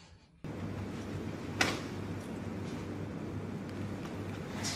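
Quiet room ambience with a steady low hum and one short click about a second and a half in.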